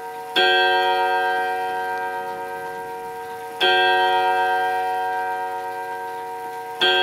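Vintage Art Deco German Württemberg-HAC mantel clock striking the hour on its gong, with the hands at twelve. Three strikes land about three seconds apart, each ringing out with many tones and slowly fading until the next.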